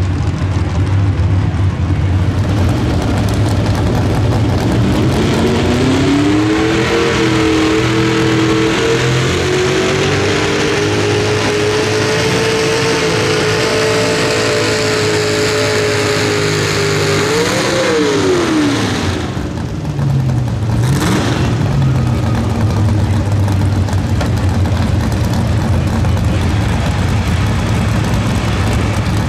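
Pulling tractor's engine idling, then revving up about five seconds in and held at high speed for about twelve seconds during the pull, before dropping back to a low idle.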